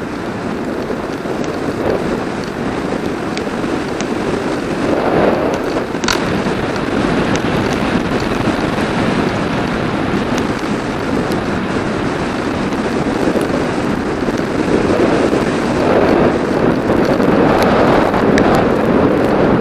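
Wind buffeting the microphone of a camera moving at speed along a road: a loud, steady rushing that swells and eases, with a few faint ticks.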